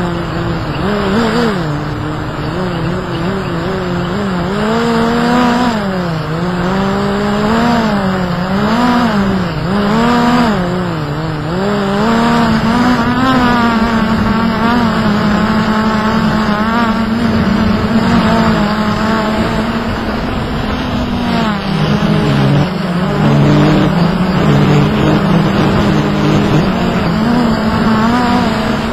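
Hubsan X4 Pro quadcopter's motors and propellers whining in flight, their pitch wavering up and down through the first half as the throttle changes, then holding steadier. Wind rushes over the onboard microphone underneath.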